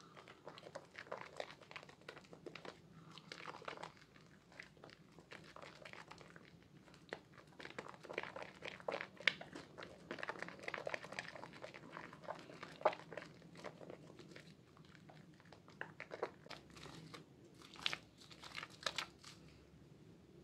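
Soaked Purbasari Red Antibacterial bar soap and its thick lather squeezed and kneaded by hand: wet squishing with many small irregular clicks and crackles of bursting foam, coming in uneven handfuls.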